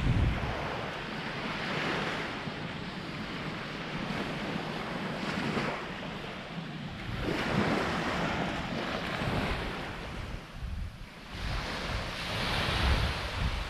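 Small waves washing up on a sandy beach, swelling and falling back every few seconds, with wind buffeting the microphone.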